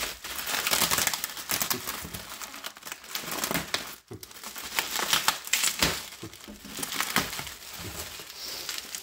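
Plastic bubble wrap crinkling and crackling as it is handled and unwrapped from a packaged enclosure, in dense irregular runs with a short lull about four seconds in.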